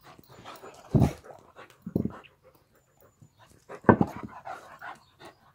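Two dogs play-fighting, making a few short, sharp noises about a second apart, the loudest about four seconds in, with softer mouthing and breathing sounds between.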